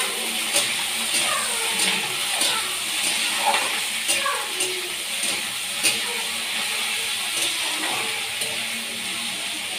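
Metal spatula stirring and scraping cauliflower and potato frying in a steel kadhai, with a steady sizzle and a sharp scrape or tap against the pan about every half second to a second.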